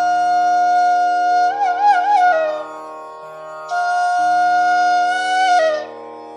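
Background instrumental music: a slow flute melody over a steady drone. It holds a long note, wavers in an ornament about two seconds in, pauses briefly, then holds another long note that slides down as it ends.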